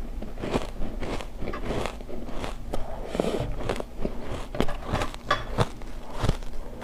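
Close-miked biting and chewing of refrozen ice chunks: a rapid, irregular run of sharp crunches and crackles.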